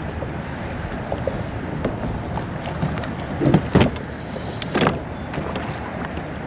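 Steady wind and water lapping around a kayak. Twice in the middle there is a short splash of a person wading through shallow water.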